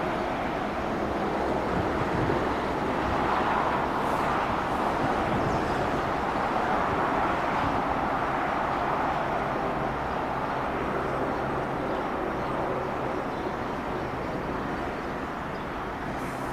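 Fertagus class 3500 electric multiple unit approaching, a steady rolling noise of wheels on rail. A faint low hum comes in during the second half.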